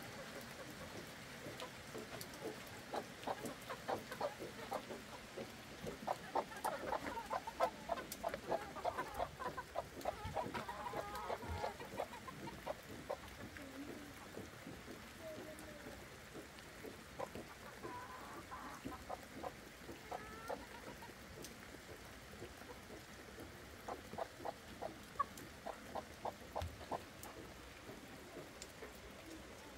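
Chickens clucking in quick runs of short repeated notes, busiest in the first half and again near the end, with a few longer drawn-out calls in between.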